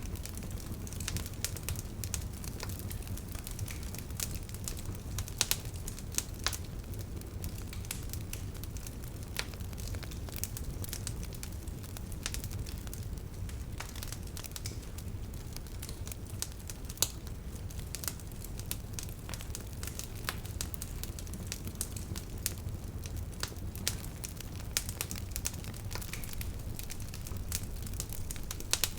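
Wood bonfire crackling, with irregular sharp pops and snaps over a low steady rumble.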